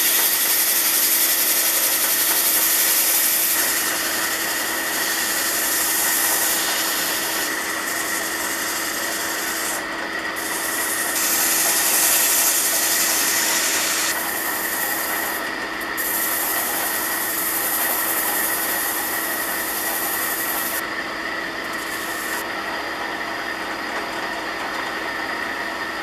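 Drill press spinning a hardwood plane knob while 150-grit sandpaper is held against it: a continuous rubbing hiss that swells and eases with the hand pressure, over the steady hum of the press.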